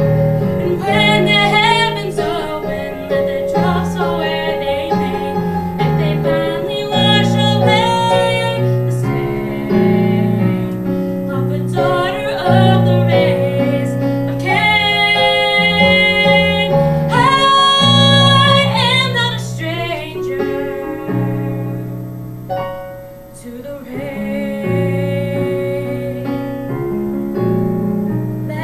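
A woman singing a solo ballad, accompanied by piano chords on an electric stage keyboard. She holds several long notes midway through, and the music drops quieter for a moment near the end.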